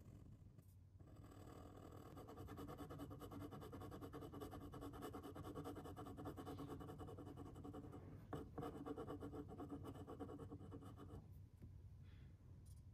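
Glass dip pen scratching faintly on paper while strokes and zigzags of a brown ink swatch are written. It stops about eleven seconds in, with one small tap partway through.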